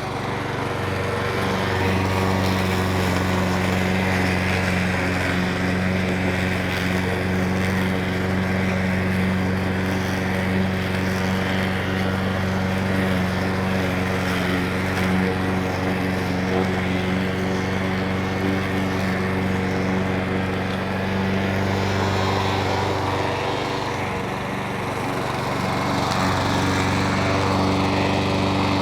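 Petrol lawn mower engine running steadily at a constant speed. Its lowest tone weakens briefly about three quarters of the way through, then comes back.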